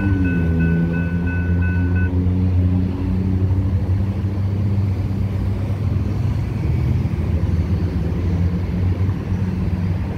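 Railroad grade-crossing bell ringing about three times a second, then cutting off about two seconds in with the gates up. Road vehicles drive over the crossing with a steady low rumble, and an engine note dips in pitch near the start.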